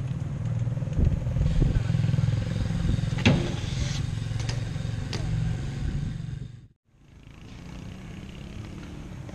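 BMX tyres rolling over concrete, a steady low rumble, with a sharp clack about three seconds in. The sound cuts off abruptly after about seven seconds and is followed by a quieter steady background noise.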